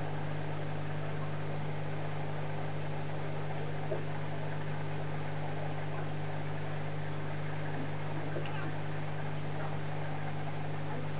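Aquarium air pump humming steadily, with the even hiss of its rising bubble stream.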